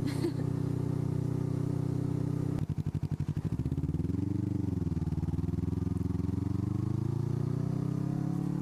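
Suzuki Inazuma GW250 parallel-twin engine with an aftermarket IXIL exhaust idling steadily, then pulling away from a stop about two and a half seconds in. The revs rise, dip at a gear change and climb steadily again as the bike accelerates.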